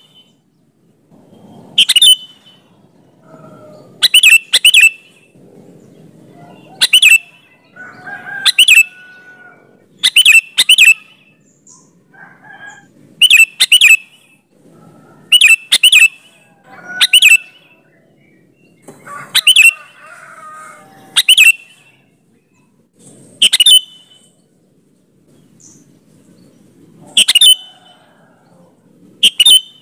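Sooty-headed bulbul (kutilang) singing. Loud, short, sharp notes come every second or two, many of them in quick pairs, with softer chattering between.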